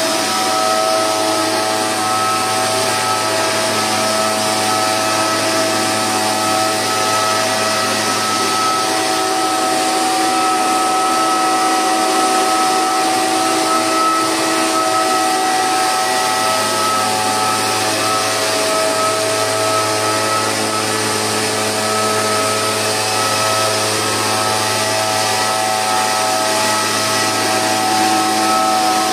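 Oleo-Mac backpack power mist blower with a Cifarelli two-stroke engine running steadily at high throttle, its fan blowing a constant rush of air as it sprays a fine mist.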